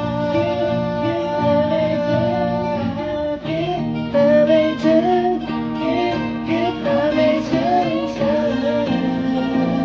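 Music: a guitar-backed song with a wavering melodic line over steady chords.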